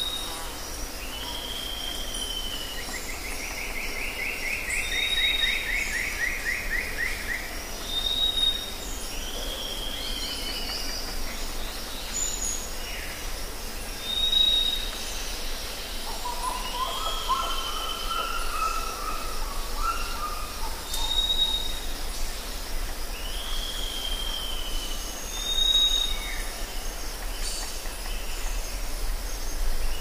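Rainforest birds calling over a steady high drone. A short high whistle repeats every two or three seconds among falling slurred notes, with a buzzy trill early on and a rapid chattering call about halfway.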